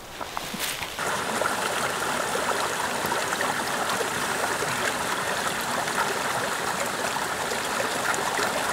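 Shallow rocky stream running over stones in a steady rush of water. It comes in suddenly about a second in, after a quieter moment with a few faint clicks.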